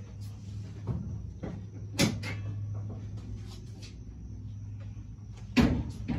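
Two sharp knocks, about two and five and a half seconds in, the second the louder, with a fainter knock about a second in, from someone working in a car, over a steady low hum.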